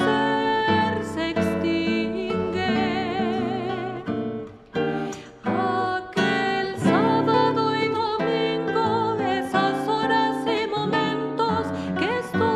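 Nylon-string classical guitar plucked in a slow song, accompanying a woman singing with vibrato. The music thins briefly about four and a half seconds in, then picks up again.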